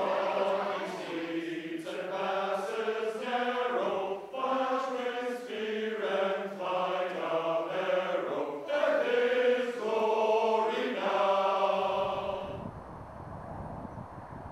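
Men's choir singing slow, sustained chords in a reverberant church. The singing ends about twelve seconds in, leaving a low steady rumble.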